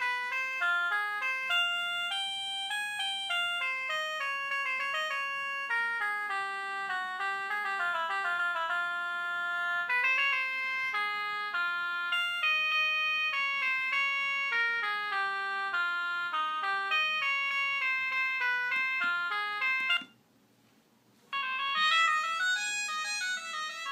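Polyphonic ringtone melodies played on a 2006 Xinhua dual-SIM phone, made of electronic notes with no deep bass. One tune stops about 20 seconds in, and after a second and a half of near silence a different tune starts.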